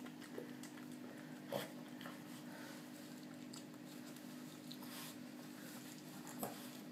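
Towel rubbing a small wet Yorkshire terrier dry, with a low steady hum underneath and two brief soft sounds, one about a second and a half in and one near the end.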